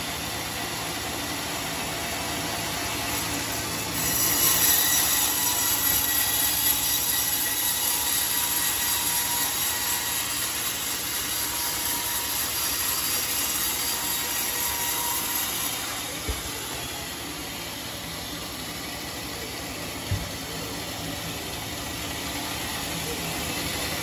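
Homemade sawmill's large circular saw blade running, louder and harsher from about four seconds in to about sixteen seconds while it cuts through a trembesi (rain tree) log, then easing off. Two short knocks follow, near sixteen and twenty seconds.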